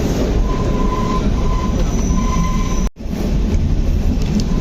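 Steady rumble and rattle of a narrow-gauge Kalka–Shimla toy train coach running, heard from inside, with a thin high wheel squeal over the first three seconds. The sound cuts out for an instant about three seconds in, then the running noise carries on.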